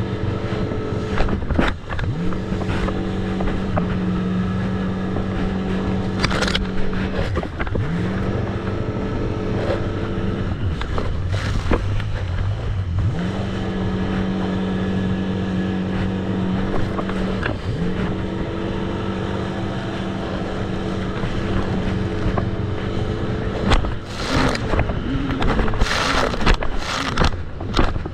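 Jet ski engine running at speed, its steady note dropping off a few times as the throttle is eased and rising again as it is opened, with rushes of wind noise in the last few seconds.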